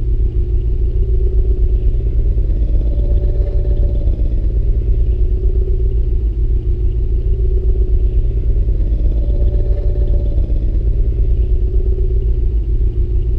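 Star Wars sound effect of Kylo Ren's Upsilon-class command shuttle engines heard from inside the cabin: a deep, steady rumble with a constant hum above it. It starts abruptly and holds unchanged, as a loopable engine bed.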